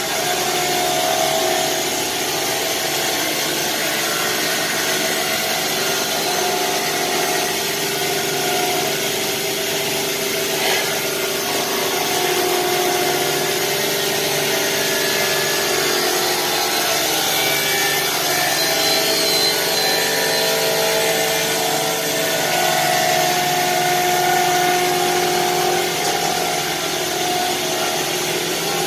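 A power cutting tool running continuously, with a steady whine whose pitch shifts slightly now and then.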